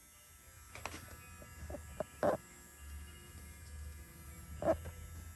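A low steady buzz, with a few short clicks and knocks of small parts being handled. The loudest knocks come a little over two seconds in and again near the end.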